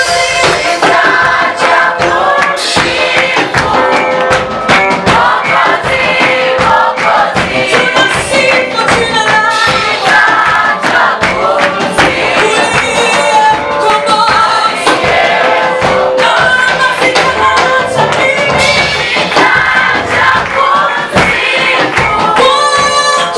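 Choir singing a gospel praise song to a steady beat of band accompaniment, with many voices together.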